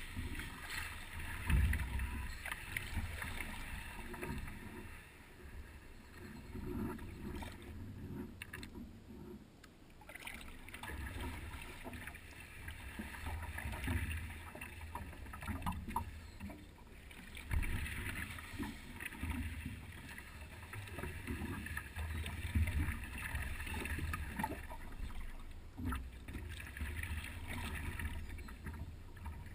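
Paddleboard being paddled on calm water: splashing and lapping of water against the board, rising and falling unevenly, over irregular low rumbling and soft thumps picked up through the board-mounted camera.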